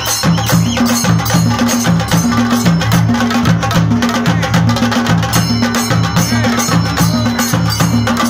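Chenda drum ensemble playing a fast, dense rhythm, loud and without a break, with a low drum note coming back about twice a second under the sharp stick strokes.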